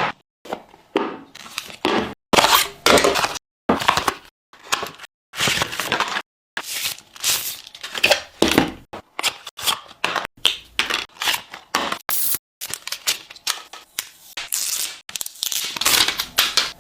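Smartphone box and packaging being unpacked: crinkling, tearing and scraping in many short bursts, each cut off abruptly by a silent gap.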